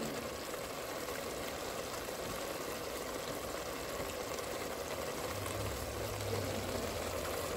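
Sauce simmering in a steel pot on the stove, a steady bubbling sizzle.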